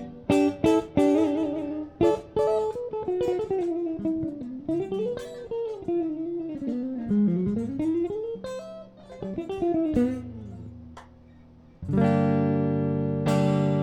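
Ibanez AZ24S electric guitar played as a sound test: a single-note lead line with slides and bends, fading almost out about eleven seconds in, then a chord struck and left ringing, followed by quick picked notes.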